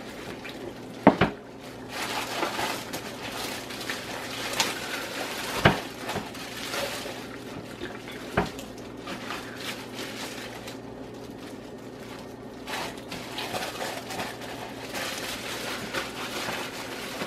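Plastic bag crinkling and wet marinade squelching as a raw turkey is rubbed and massaged through the bag, with three sharp knocks about one, five and a half and eight seconds in.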